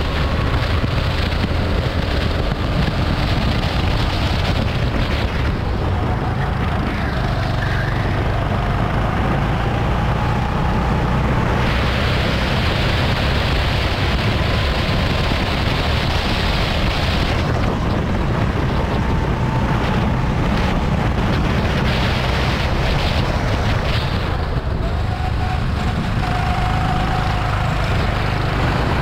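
Go-kart engine running at speed, its pitch rising and falling again and again as the kart accelerates and slows through corners, under heavy wind noise on the microphone. The wind rush grows louder for several seconds in the middle.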